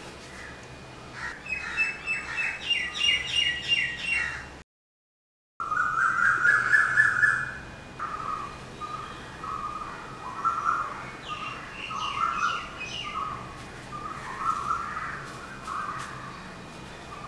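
Birds calling: runs of quick, high repeated chirps, and lower calls through the rest. The sound cuts out completely for about a second, a little before the middle.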